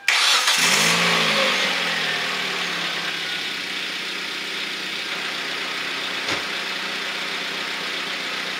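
A 2008 Hyundai Elantra's Beta four-cylinder engine starts suddenly and its revs flare up briefly about a second in. It then settles into a steady idle, freshly tuned up with new spark plugs and ignition wires.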